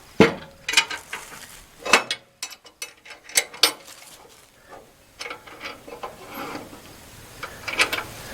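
Metal parts of a Norwood portable sawmill being worked by hand: a series of sharp clanks and clicks at irregular intervals, with no saw or engine running.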